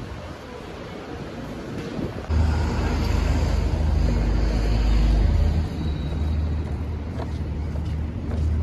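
Light wind noise, then from about two seconds in a loud, steady low rumble of a motor vehicle's engine and road traffic.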